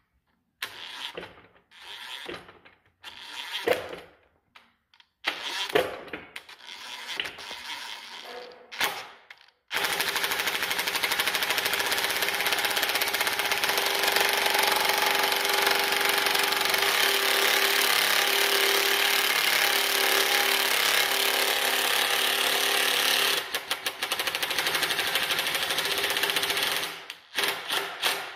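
20V DeWalt Atomic 3/8-inch cordless impact wrench hammering as it turns the worm-gear bolt of a truck brake slack adjuster, rotating an engine on a stand. It goes in short trigger bursts for the first ten seconds, then hammers steadily for about seventeen seconds, with a few short bursts again near the end.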